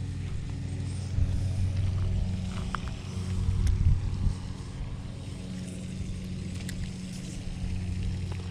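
A motor running steadily at a constant speed, a low even hum in the background, with a few light clicks about three to four seconds in.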